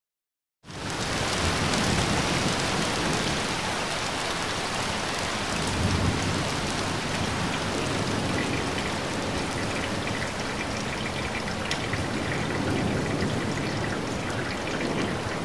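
Steady rain, cutting in suddenly about half a second in after dead silence.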